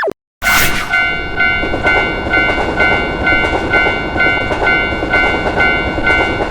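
Japanese railway level-crossing alarm ringing about twice a second over the rumble of a passing train, starting about half a second in.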